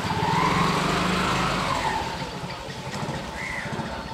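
A small engine running, its pitch rising and then falling over the first two seconds.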